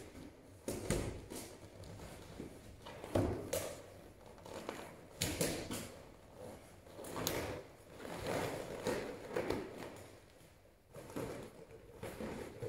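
Latex balloons being handled and pressed together, making irregular rubbing and squeaking noises with a few sharp knocks.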